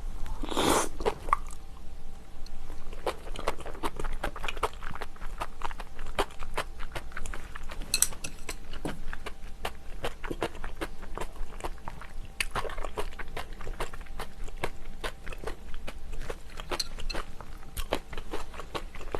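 Close-miked mouth sounds of someone eating seafood stew: wet chewing and smacking in a dense, irregular run of small clicks, with a louder, longer wet sound in the first second.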